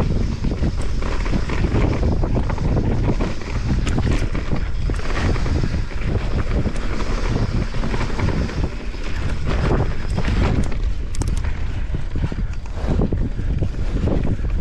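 Wind rushing over the microphone of a fast downhill mountain bike run, mixed with the Santa Cruz Megatower's tyres rolling on a dirt trail and frequent short clattering knocks from the bike over bumps.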